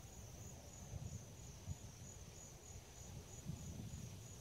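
Crickets trilling steadily in a high, evenly pulsing tone, over a faint low rumble.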